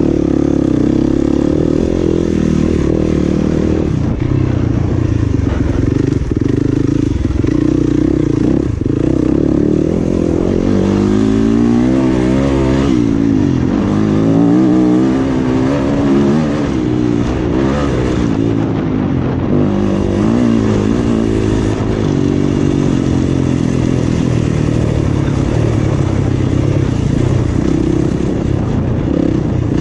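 Yamaha dirt bike's single-cylinder engine under hard riding, revving up and down continuously with throttle and gear changes. The pitch rises and falls most rapidly in the middle stretch.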